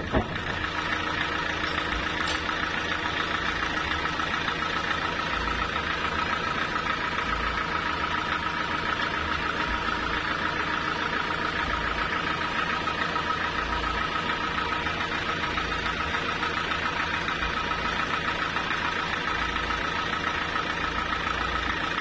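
Sawmill engine and saw running steadily without load, not cutting, with a constant high-pitched hum over an even mechanical drone.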